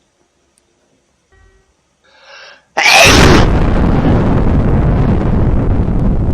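A hedgehog's small sneeze, then a sudden, extremely loud distorted blast about three seconds in. The blast holds as a dense, steady wall of noise for several seconds, like an explosion.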